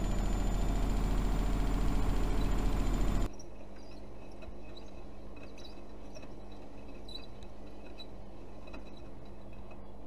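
Privileg Dynamic 6610 CN front-loading washing machine: a loud steady hum with a low rumble for about three seconds, cut off abruptly, then the drum quietly tumbling the load in rinse water with a low motor hum and faint scattered clinks.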